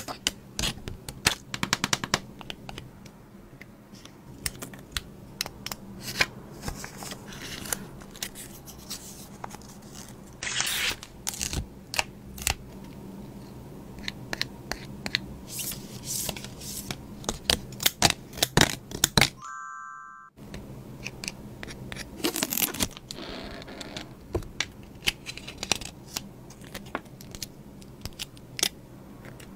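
Close-up paper-craft handling: scissors snipping paper, with scraping, crinkling and tearing of paper and sticker sheets and a run of sharp taps and clicks. There is a brief silent break about twenty seconds in.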